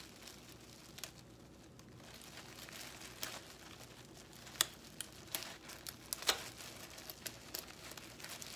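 Plastic oven roasting bag crinkling as it is gathered and tied shut, with a few scattered sharp crackles, loudest about four and a half and six seconds in.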